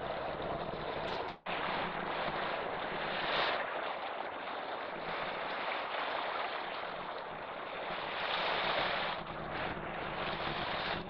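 Steady rushing noise of wind and water at the shore, swelling twice and cut off for an instant once, about a second and a half in.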